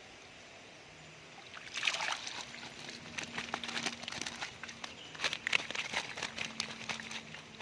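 Water splashing and sloshing in quick, irregular spatters, starting about a second and a half in and dying away near the end.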